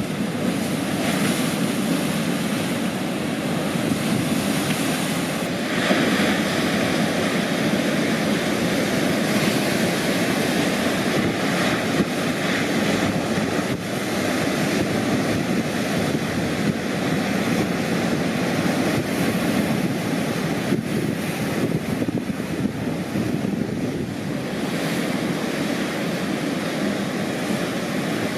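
Atlantic ocean surf breaking and washing ashore: a continuous rush of waves that swells and eases as sets come in, loudest about six seconds in.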